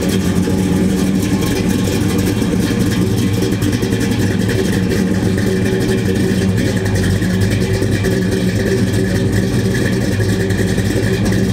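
Classic muscle car's engine idling steadily with a low, even rumble.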